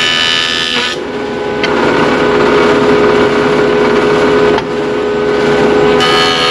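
Electric wood jointer running with a steady motor whine. For about five seconds in the middle the sound changes as a cedar board's edge is fed across the cutterhead and flattened, then it goes back to running free.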